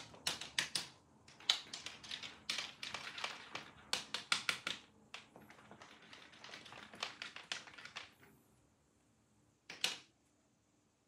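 A cat batting and tugging at a feather wand toy on a wooden parquet floor: quick, irregular taps and scratches of the toy and claws on the boards for about eight seconds, then one more short scrape near the end.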